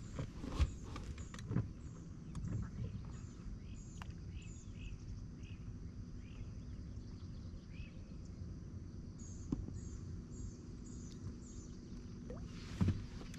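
A small bird singing two runs of short, high chirps, about two a second, over a low steady outdoor rumble, with a few brief knocks.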